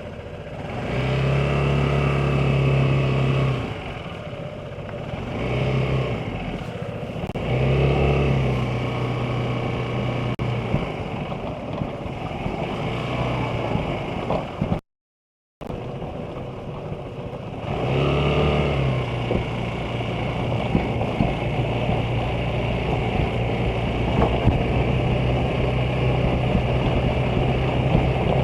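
Vespa GTS 300 scooter's single-cylinder four-stroke engine pulling away and accelerating several times, easing off in between, then running steadily at cruising speed. The sound drops out for under a second about halfway through.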